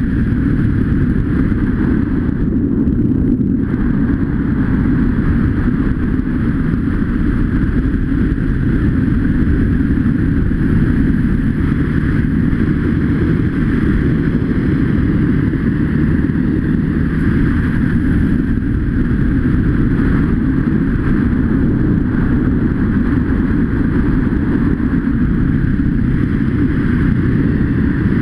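Dirt bike engine running steadily under way, mixed with wind rushing over the helmet-mounted camera.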